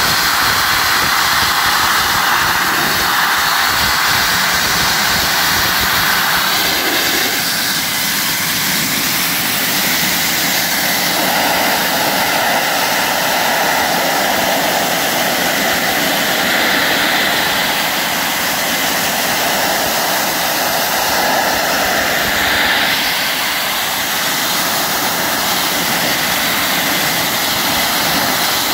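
Dustless wet abrasive blasting: a nozzle blasting a water-and-abrasive mix against rusty steel, making a loud, steady hissing rush. Its tone shifts as the nozzle moves across the metal.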